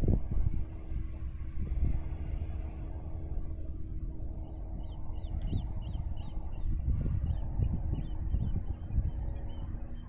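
Wind rumbling on the microphone, with a songbird repeating a short, high two-note phrase every second or two and other birds chirping faintly in the middle.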